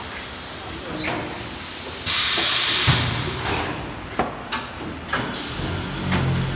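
Rice vacuum packing machine working: a loud hiss of air about two seconds in that lasts about a second and ends in a low thump, with several sharp clacks from its mechanism before and after.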